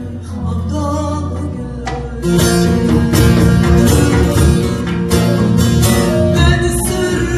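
Live Turkish folk music: an ensemble with plucked strings playing, growing louder and fuller about two seconds in.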